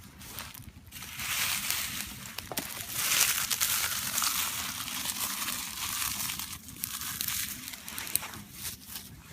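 Crackling and crunching of dry tinder or kindling, a rough rustling noise full of small sharp snaps that swells about a second in and runs until near the end.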